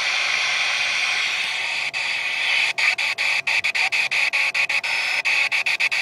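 Stryker SR-955HPC 10-meter transceiver hissing with band static through its speaker while on receive. From about three seconds in, the hiss cuts out briefly about five times a second as the channel selector is clicked rapidly through the channels.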